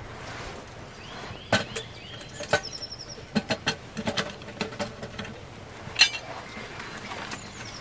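Metal cookware clinking and knocking as a pot with a lid and bail handle is set on a wood-burning twig stove and handled: a string of sharp clinks with a brief metallic ring, the loudest knock about six seconds in.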